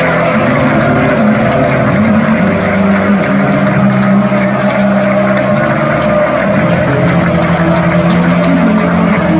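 Football crowd singing a chant together, many voices holding long notes that step up and down every second or two over steady crowd noise.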